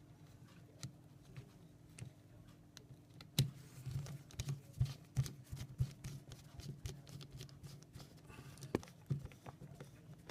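The last small screw being driven into the plastic housing of a PAG PL96e battery's link connector, heard as irregular small clicks and ticks of tool and parts handling. The clicks get busier about three and a half seconds in, with a sharper click there and another near the end. A faint steady low hum runs underneath.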